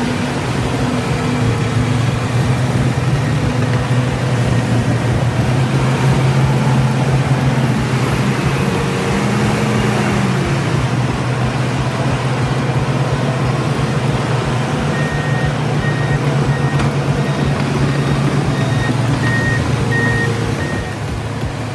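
Heavy diesel engine of a truck or bulldozer running steadily under load with a deep, even drone. In the last third a run of short, evenly spaced high beeps from a reversing alarm sounds over it.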